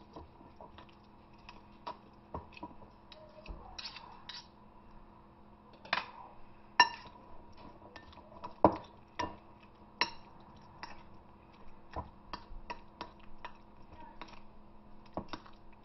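Metal fork clinking and scraping against a ceramic bowl while mixing mayonnaise and cream cheese: irregular taps, with a few louder clinks that ring briefly in the middle.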